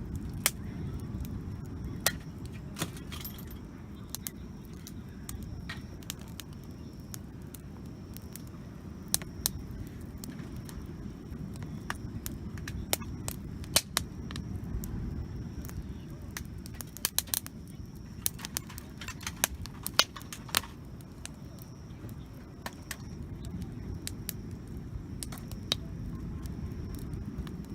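Wood campfire crackling, with irregular sharp pops that come thickest a little past the middle, over a low steady rumble.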